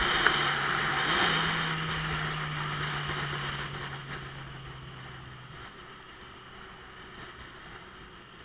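Motorcycle engine running while riding, with wind noise rushing over the microphone. The engine note drops a little about a second in, and the whole sound fades steadily until the engine is no longer heard.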